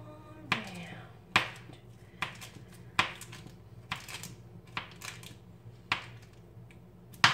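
A knife cutting a stick of butter into pats, the blade tapping sharply against the surface beneath about ten times, roughly once a second, over a faint steady hum.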